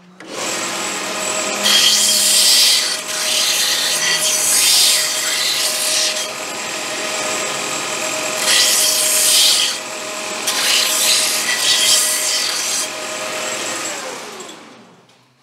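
Belt sander starting up and running, with a metal piece pressed against the belt in several bursts of grinding to deburr its freshly cut edges; the motor winds down near the end.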